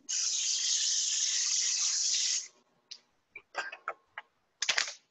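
A steady hiss for about two and a half seconds that starts and cuts off sharply, followed by a few light clicks of kitchen items being handled.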